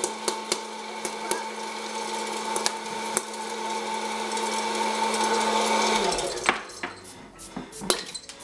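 Hot-air popcorn popper's fan motor running with a steady hum and rush of air, with occasional sharp ticks, then switched off about six seconds in, the hum dropping in pitch as the fan winds down. A few light clicks and knocks follow.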